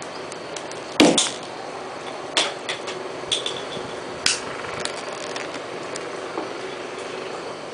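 A sharp pop about a second in as the cap shoots off a twisted, pressurised empty plastic water bottle, followed by a few lighter clicks and knocks over a steady background hum.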